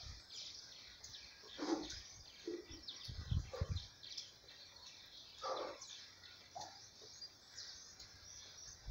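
Small birds chirping and twittering over a faint outdoor background, with a few louder, lower calls scattered through and a brief low rumble about three seconds in.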